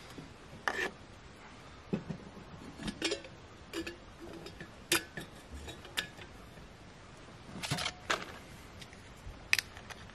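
Camp cookware being handled on a wooden picnic table: scattered short clinks and knocks of a metal pot, mug and gas-canister stove. The sharpest come about five seconds in and again near the end.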